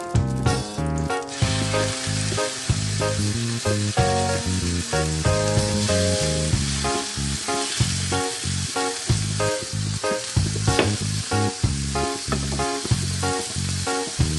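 Beef steaks searing on a ridged grill pan, sizzling in hot fat. The sizzle starts about a second and a half in and then holds steady, under background music with a steady beat.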